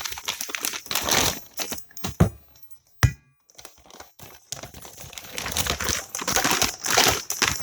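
Packing material rustling and crinkling as a boxed part is handled and repacked, with a sharp knock about three seconds in.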